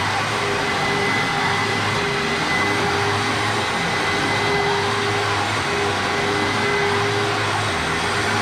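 Hoover WindTunnel self-propelled upright vacuum cleaner running steadily on carpet, a constant motor whine over the rush of air.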